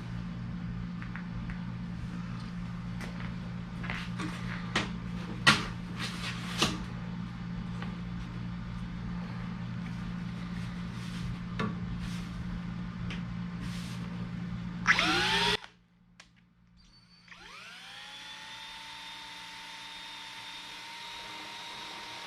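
A small electric motor runs with a steady hum while there are scattered clicks and knocks. About fifteen seconds in it winds down to a stop. A couple of seconds later it spins up with a rising whine and settles into a steady run.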